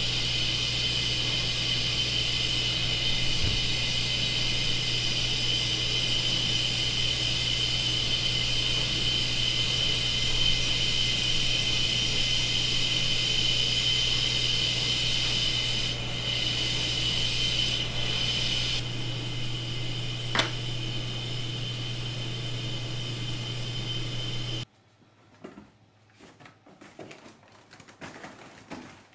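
A machine running with a steady hum and a high whine, cutting off abruptly about 25 seconds in. Light clicks and knocks follow in near quiet.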